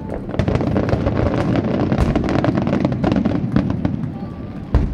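Aerial firework shells bursting in quick succession with dense crackling, and two heavier booms, one about two seconds in and one near the end.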